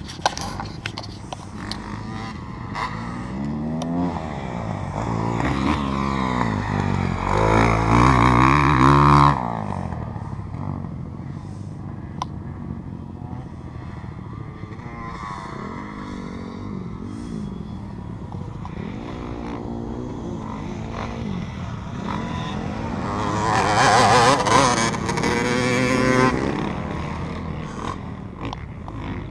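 Honda CR250 two-stroke motocross bike revving hard through the gears, its pitch rising and falling. It builds to a loud run that cuts off suddenly about nine seconds in, as the throttle is closed for the jump, and makes another loud pass near the end.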